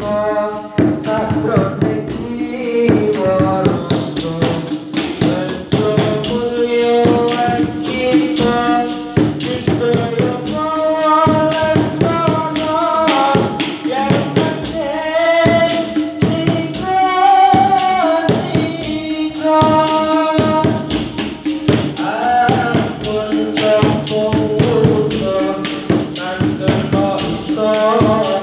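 Sholawat devotional singing by a male vocalist, accompanied by hadrah percussion: frame drums (rebana) and small hand drums beating a steady rhythm.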